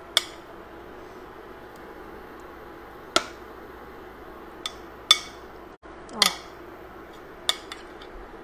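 A spoon tapping and scraping against a glass food container and a pot as raw chicken pieces are pushed into the pot: about seven sharp, separate clinks, a few seconds apart at first, then closer together near the end.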